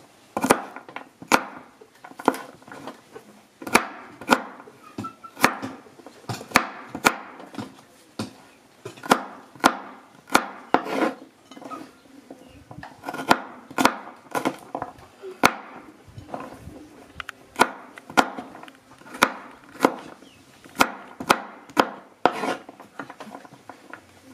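Chef's knife chopping garlic cloves on a wooden cutting board: irregular sharp knocks of the blade on the wood, one or two a second.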